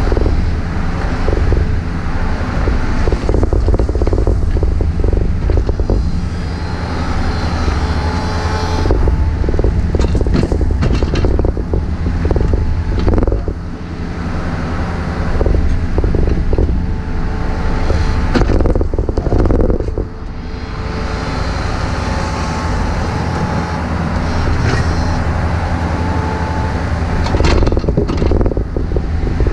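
Compact excavator's diesel engine running steadily, with repeated knocks and scrapes from the machine at work digging.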